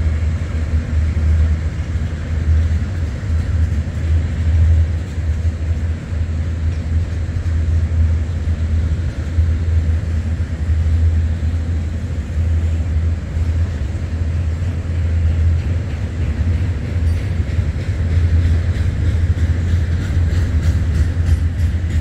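MTH O27 toy train locomotives running steadily around three-rail track on conventional AC power. There is a continuous motor and wheel drone with a strong low hum.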